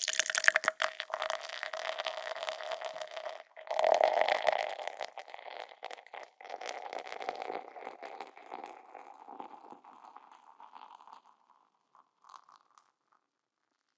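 Beer being poured into a glass. The pour runs with a steady tone and fizzing crackle, breaks off briefly about three and a half seconds in, and comes back strongly. Its pitch then rises slowly as the glass fills, and it thins into a fading foam fizz by about eleven seconds.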